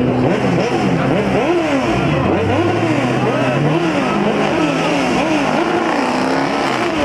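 Car engine revved again and again, its pitch rising and falling in quick repeated sweeps, with another engine idling steadily underneath.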